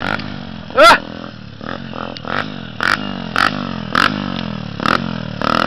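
Single-cylinder four-stroke engine of a Honda Turuna 125 motorcycle, revving up and down over and over as it circles doing donuts on a dirt track. About a second in, a short, loud rising sound stands out above the engine, and several sharp short noises come through over it.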